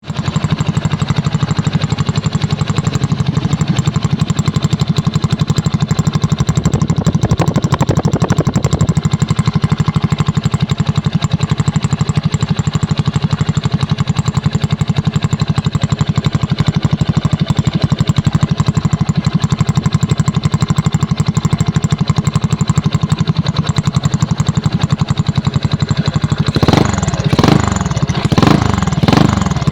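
Yamaha Mio Sporty scooter's single-cylinder four-stroke engine idling steadily through an Apido aftermarket exhaust, then blipped in a run of quick revs near the end.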